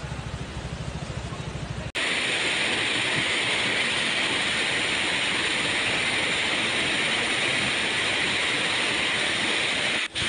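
Muddy floodwater rushing in a fast torrent: a steady, loud rush of turbulent water. For about the first two seconds it is quieter, then it cuts in suddenly louder.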